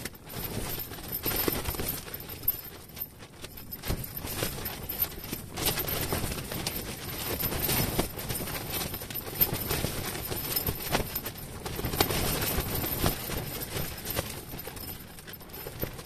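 Wind buffeting an ice-fishing tent: the fabric flaps and rustles in gusts that swell and fade, with many small taps and clicks.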